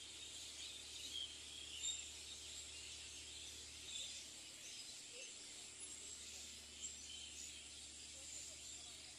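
Faint countryside ambience: a steady high hiss with a few short bird chirps scattered through it.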